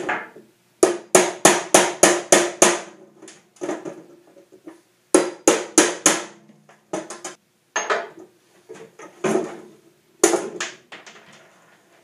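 A hammer drives a metal chisel against drilled-out pop rivets on a snow shovel's steel edge strip, knocking the rivet heads off. The sharp metallic blows come in quick runs of several strikes, about three or four a second, with pauses between, and each blow rings briefly.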